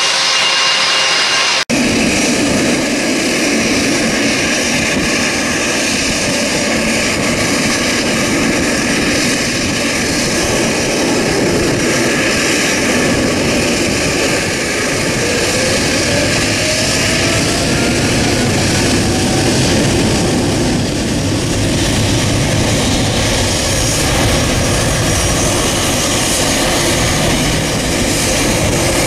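Boeing 777 freighter's GE90 jet engines running loud and close, a dense steady roar with a faint rising whine about halfway through. It starts abruptly after a cut about two seconds in.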